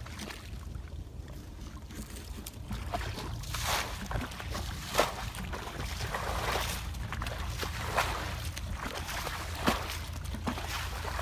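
A plastic bucket scooping and flinging muddy water while bailing a shallow flooded hollow, with a splash every second or two from a few seconds in. A steady low rumble runs underneath.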